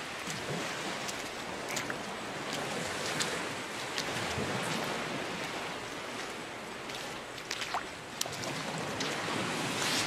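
Gulf surf washing onto the beach in a steady wash, with some wind on the microphone. A few brief, sharp ticks are heard now and then, most around the eighth second.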